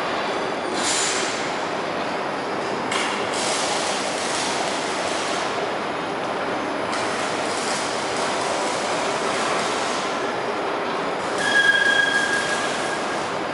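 Revolving kiddie carousel turning on its platform: a steady rolling, grinding running noise from its drive and wheels. Near the end a brief high squeal rises over it, the loudest moment.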